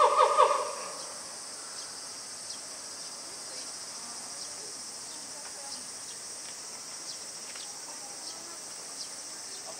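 Steady high drone of summer cicadas. In the first second a loud pitched call with a buzzing, pulsing tail dies away.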